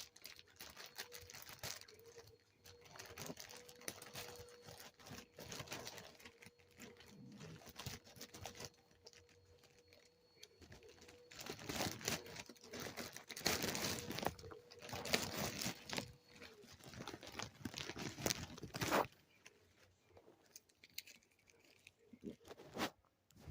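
Packaging crinkling and rustling in irregular bursts as a parcel is unwrapped by hand, busiest after about halfway, then mostly quiet with a single click near the end.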